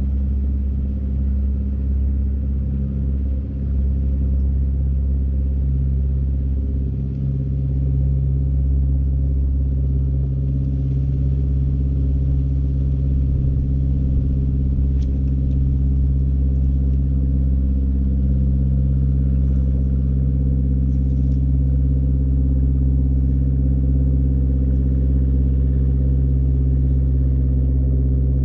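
An engine running steadily at constant speed: a low hum with an unchanging pitch throughout.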